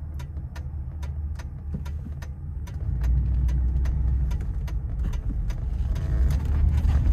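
Inside the cabin of a 1989 Cadillac V8 as it pulls out and accelerates, a low engine and road rumble grows louder about three seconds in. Over it a turn-signal flasher clicks steadily, about twice a second.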